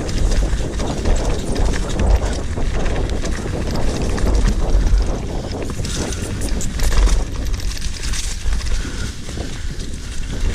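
Mountain bike riding fast down a rough dirt trail: wind rumbling on the microphone, with the rattle and knocks of the bike over stones and bumps.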